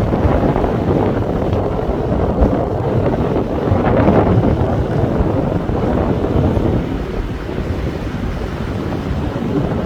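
Strong gusty wind buffeting the microphone, a loud rumbling rush that swells and eases, a little lighter for a few seconds near the end.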